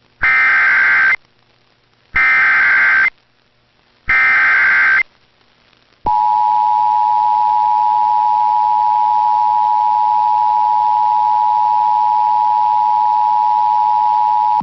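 Emergency Alert System SAME header: three one-second bursts of warbling digital data tones, a second apart. About six seconds in comes the steady two-tone EAS attention signal (853 and 960 Hz together). These are the coded header and alert tone that open a relayed severe thunderstorm warning.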